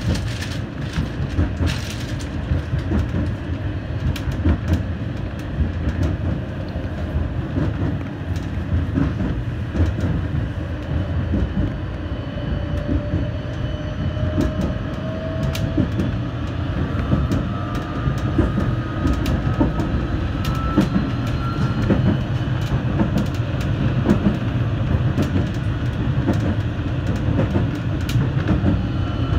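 Vityaz-M (71-931M) low-floor tram running along its track, heard from the driver's cab: a steady rumble of wheels on rails with scattered clicks. A motor whine rises in pitch twice around the middle.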